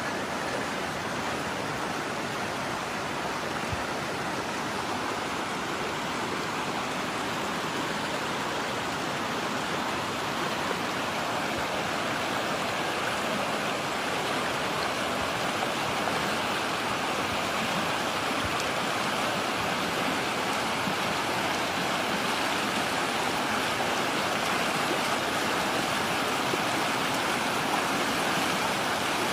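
Steady rush of flowing water, an even unbroken noise with no pauses or distinct events.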